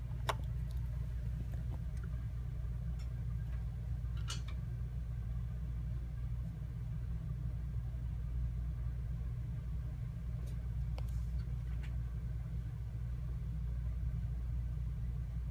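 Steady low hum of room equipment, with a few light clicks about four seconds in and again around ten to twelve seconds in.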